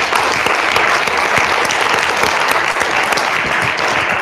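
Audience applauding: a steady, dense clapping from a roomful of people.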